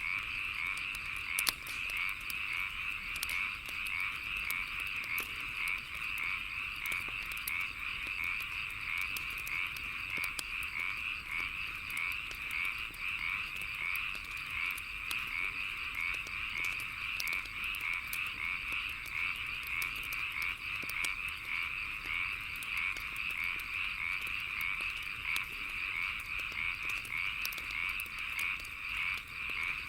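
A dense chorus of frogs calling continuously, with a faint steady insect trill above it. A wood fire crackles over the chorus with scattered small pops, one sharper pop about a second and a half in.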